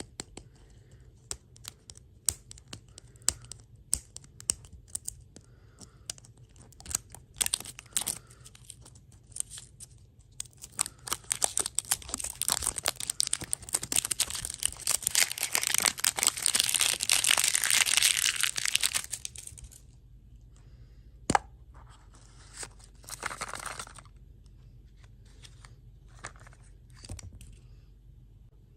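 Packaging being torn open and crinkled by hand. Scattered crackles and clicks come first, then a long, loud stretch of dense crinkling and tearing, a sharp click, and a short last crinkle.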